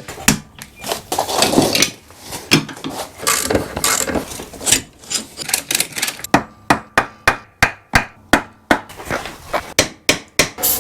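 Hand tools working on a seized engine side cover: scraping and knocking at first, then a quick run of sharp hammer blows, about three or four a second, through the second half.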